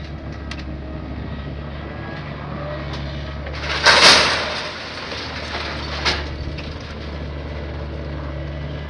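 Diesel engine of an Atlas scrap-handling excavator running steadily while its grab lets a wrecked car down onto a scrap heap. The car body lands with a loud metal crash about four seconds in, followed by a smaller clank about two seconds later.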